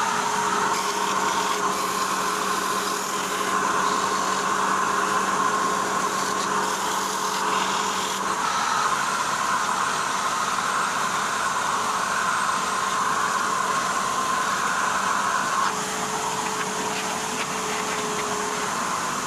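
Steady whir of a wood lathe spinning a segmented pen blank between centres, with a dust-extraction vacuum running. Abrasive paper sands the spinning blank. A low hum drops out about halfway through, and the noise eases slightly near the end.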